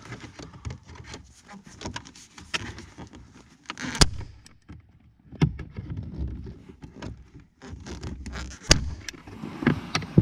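Hands rummaging under a car's dashboard with trim panels and small parts: irregular rustling with scattered clicks and knocks, and two sharp knocks, one about four seconds in and one near the end.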